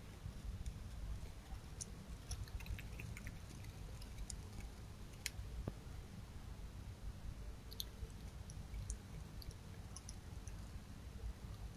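Red fox eating, heard as faint, scattered wet clicks and crunches of chewing over a steady low hum.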